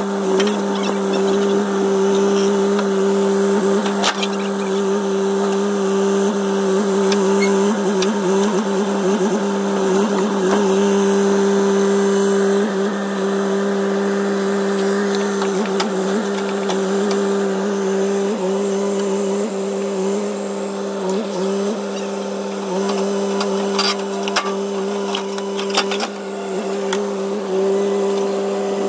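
Steady motor drone: two strong tones, one an octave above the other, holding an even pitch throughout, with a few brief clicks near the end.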